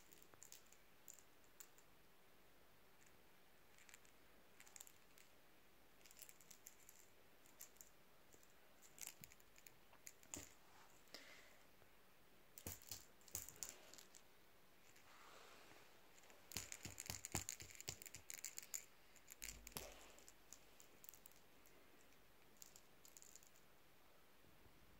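Near silence: room tone with faint, scattered clicks and light rattles, which come in small clusters about halfway through and again around two-thirds of the way in.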